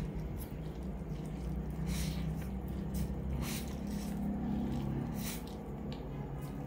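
Close-up mouth sounds of a person eating black bean sauce noodles: several short, hissing slurps as the noodles are sucked in, with wet chewing between them, over a steady low hum.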